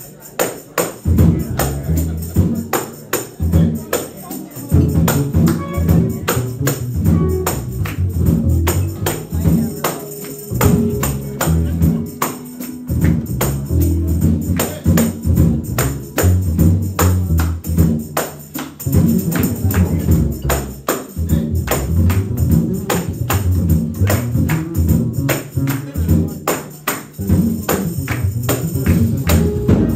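Jazz quartet playing live: piano and a strong low bass line under frequent, sharp cymbal and drum strokes.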